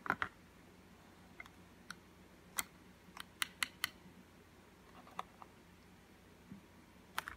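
Light, scattered clicks and taps of multimeter test-probe tips touching a diesel glow plug's metal terminal and body during a resistance check, about a dozen in all with a quick run of four near the middle.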